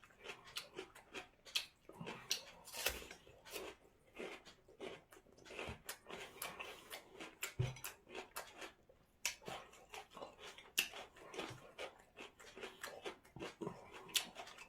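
A person eating: chewing and crunching on radish, with many faint, irregular clicks and smacks.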